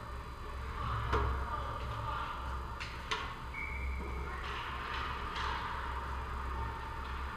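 Ice hockey play echoing in an indoor rink: skates scraping the ice and a few sharp stick-and-puck clicks, about a second in and three seconds in, over a steady low hum. A short high tone sounds near the middle.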